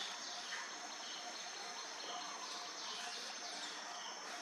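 Outdoor tree-canopy ambience: birds giving quick, falling chirps every second or so over a steady high insect drone.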